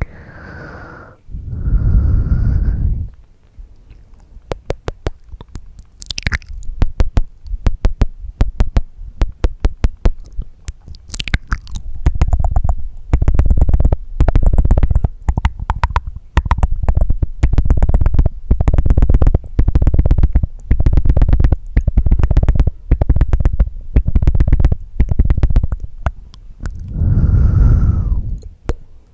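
Close-microphone ASMR mouth sounds: two breaths into the microphone at the start, then rapid tongue clicks and mouth noises in repeated clusters, and another breath near the end.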